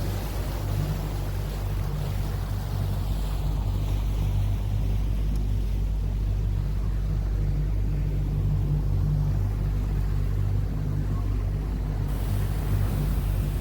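Motorboat engine running steadily under way, a constant low drone with rushing wind and water noise.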